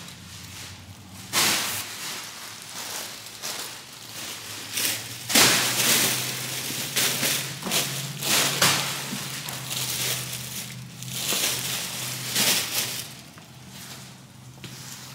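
Plastic bags of packages rustling and crinkling as they are pushed and packed into a car's cargo area, with a few louder crunches along the way.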